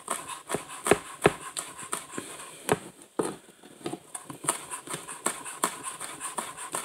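Chef's knife slicing garlic on a wooden cutting board with a rocking motion: a run of sharp knocks of the blade on the board, about two to three a second. There is a short pause a little after three seconds in, and the knocks after it are fainter.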